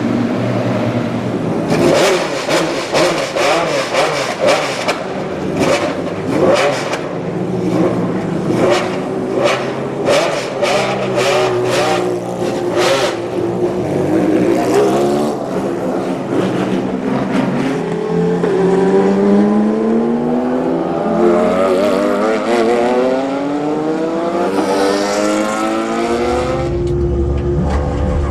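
Porsche 996 GT3 RSR's naturally aspirated flat-six racing engine revving hard, with a run of sharp exhaust cracks in the first half. Its pitch then climbs steadily for several seconds and breaks off near the end into a lower rumble.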